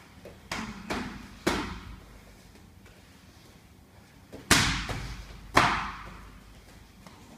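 Sparring strikes landing with sharp, echoing thuds: three in quick succession, then two louder ones about a second apart.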